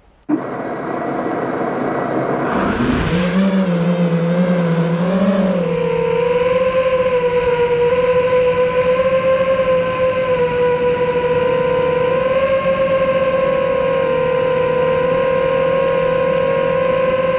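FPV quadcopter's electric motors whining: they start suddenly, rise in pitch as the throttle comes up a few seconds in, then hold a steady whine that wavers slightly as the drone flies.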